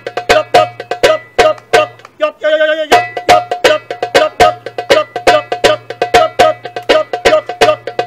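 Darbuka (goblet drum) played by hand in a fast, even rhythm of sharp, ringing slaps, about four a second. A short wavering vocal note comes in about two and a half seconds in.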